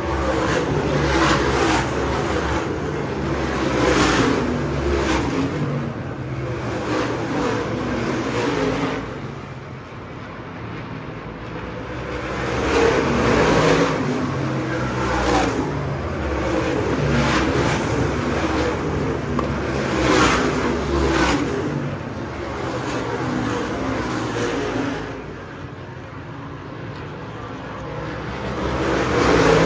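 Supermodified race cars running laps on a short oval, their engines growing loud as the field passes and fading between passes, several times over.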